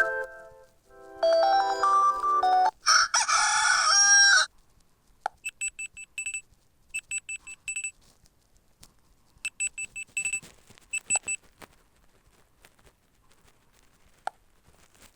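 Fly FS458 Stratus 7 phone ringtones played through the phone's speaker: the end of a short melodic tune, then a recorded rooster crowing about three seconds in, then several groups of short, high electronic beeps.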